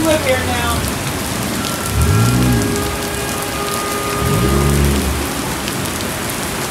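Heavy rain pouring down onto a city street and pavement, a steady hiss of downpour. About two seconds in, and again around four and a half seconds, a short low pitched sound rises and falls over the rain.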